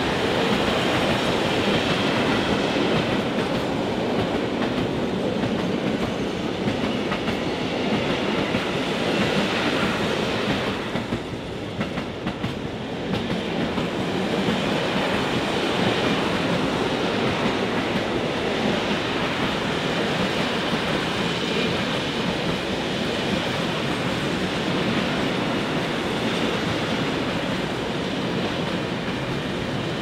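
Freight train of rail tank wagons rolling past close by: a steady noise of steel wheels running on the rails, dipping briefly in loudness about halfway through.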